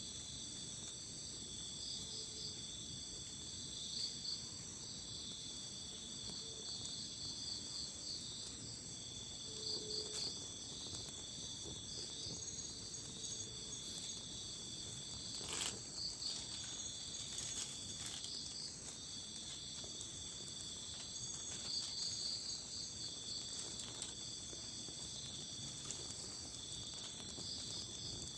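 Night insects such as crickets chirring steadily in several high tones, with pulsed trills that come and go. A few sharp clicks sound about halfway through.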